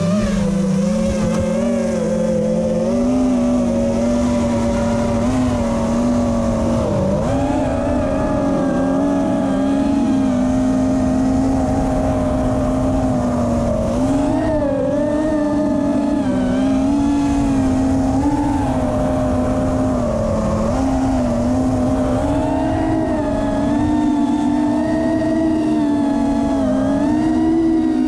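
FPV quadcopter's brushless motors and propellers buzzing, the pitch rising and falling continually with throttle changes.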